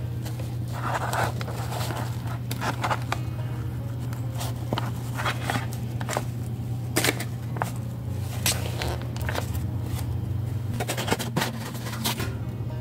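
Knife scraping cubes of soft butter off a paper wrapper into a glass bowl of flour, with the paper crinkling and scattered short clicks and scrapes, over a steady low hum.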